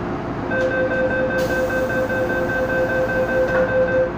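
MTR M-Train door-closing warning: a steady beeping tone that starts about half a second in and lasts some three and a half seconds, while the saloon doors slide shut. It sounds over the car's steady hum, with a hiss joining partway through.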